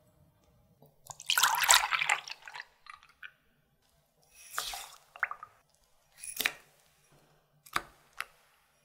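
A liquid is poured into a glass measuring jug. Sugar and salt are then tipped into the milk from a small bowl, and butter goes in off a spoon, which clicks sharply twice against the glass near the end.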